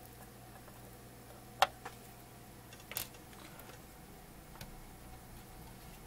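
Quiet bench work: a few sharp clicks and taps of tools being handled on an electronics workbench over a faint steady hum. The loudest click comes about a second and a half in, with a smaller pair around three seconds in.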